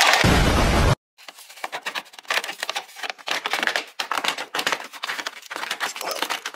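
A loud steady whir cuts off abruptly about a second in. It is followed by light, irregular clicking and clattering of tools and parts being handled while the air box is taken apart.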